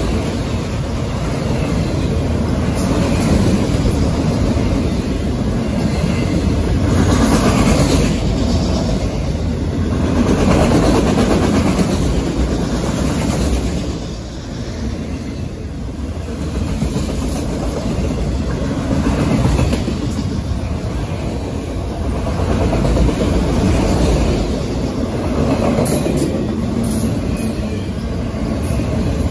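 Norfolk Southern freight train of autorack cars rolling past: a steady rumble of steel wheels on the rails, swelling and easing every few seconds as the cars go by.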